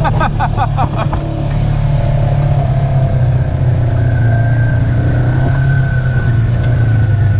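Polaris RZR side-by-side engine running steadily under throttle, with a brief fast pulsing rattle in the first second.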